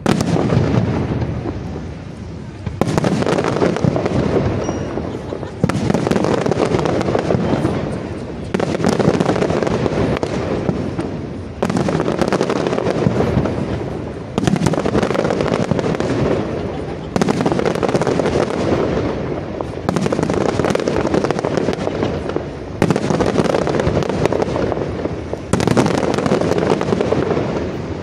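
Fireworks display: dense volleys of bursting shells and crackle. Each volley starts sharply about every three seconds and tails off before the next.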